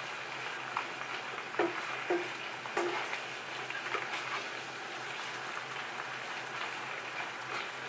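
Shrimp sizzling and crackling in a hot nonstick frying pan on a gas burner, with a steady frying hiss. They are stirred and turned with a slotted spatula that knocks against the pan a few times in the first three seconds.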